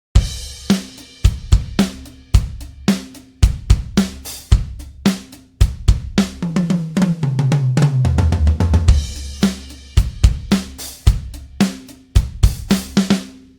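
Sampled acoustic drum kit from Toontrack EZdrummer 3 playing a groove of kick, snare, hi-hat and cymbals, broken in the middle by a tom fill that steps down from high to low toms. It starts and stops abruptly.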